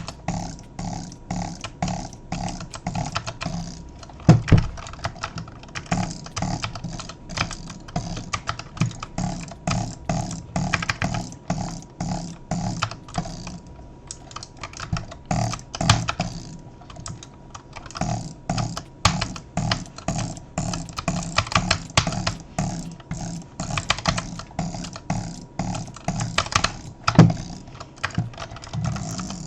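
Rapid, irregular mechanical clicking, several clicks a second, over a faint steady hum.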